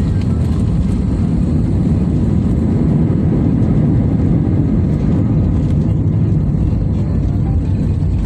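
Airliner cabin noise in flight: a loud, steady, low rumble of engines and airflow heard from inside the passenger cabin.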